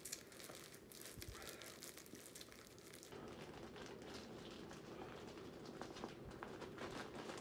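Faint crinkling and crackling of a plastic yarn package being handled and pulled open, busiest in the first few seconds, then fewer, scattered crackles.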